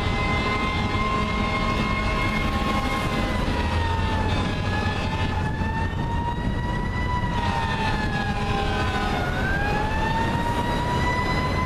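Fire truck's siren wailing in slow sweeps that fall and rise again, dipping twice, over the low rumble of road traffic.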